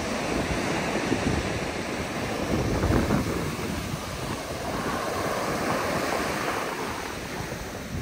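Small ocean waves breaking and washing up a sandy beach in a steady hiss of surf, with wind buffeting the microphone in gusts.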